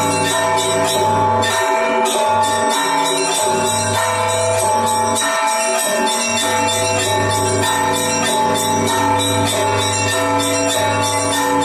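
A set of church bells rung together in the Russian manner: small bells struck in a fast, busy pattern over steadily ringing middle bells, with a deep low bell sounding under them that drops out twice.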